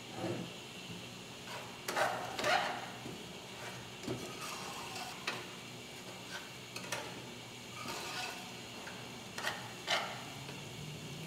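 A spoon stirring thick, creamy risotto in a stainless steel sauté pan, with irregular scrapes and clinks against the pan, over a steady background hum. This is the last stir that works in the heavy cream just added.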